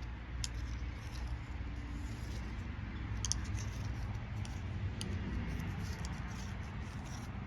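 Faint scattered clicks and light rustles of a vinyl toy figure and its packaging being handled, over a steady low hum.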